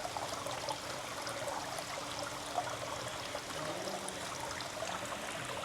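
Water trickling and running steadily, from the aquarium's dripping moss wall and falling-water features.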